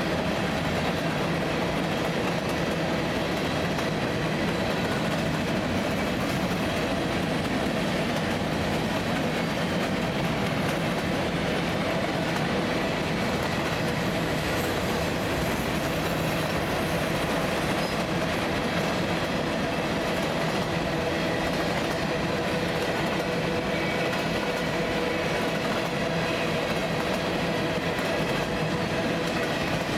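Freight train's covered hopper cars rolling past at speed: a steady rumble and clatter of steel wheels on the rails.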